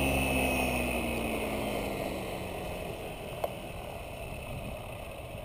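Align T-Rex 550 electric RC helicopter's motor and rotor spooling down after landing: a whine and rotor hum that fall in pitch and fade away over the first couple of seconds. A single sharp click comes about three and a half seconds in.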